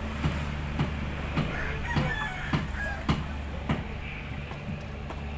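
Hammer blows on the wooden column formwork, about two a second, fainter near the end. A rooster crows briefly about two seconds in.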